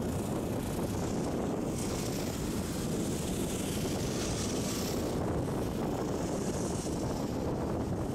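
Steady low rumble of road and engine noise from a car driving slowly along a street. A higher hiss swells for a few seconds starting about two seconds in.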